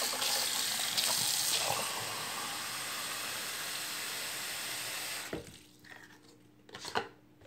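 Bathroom faucet running, its stream pouring into a small plastic tub in the sink. The water stops about five seconds in, and a few light knocks follow.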